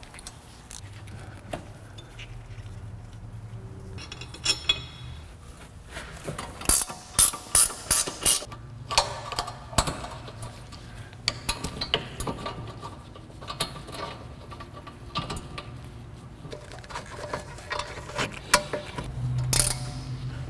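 Hand ratchet clicking in short strokes as bolts and the brake line fitting on a rear disc brake caliper are tightened. There is a quick run of loud, sharp clicks about a third of the way in.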